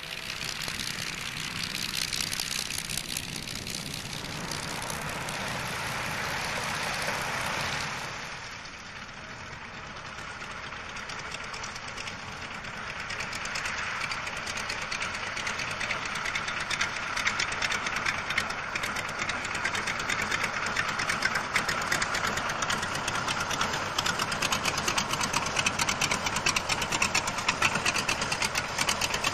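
CAC Wirraway's nine-cylinder Pratt & Whitney Wasp radial engine running at a lumpy, knocking idle as the aircraft taxis, growing louder as it comes close about halfway through. A different, louder engine noise fills the first several seconds and fades about eight seconds in.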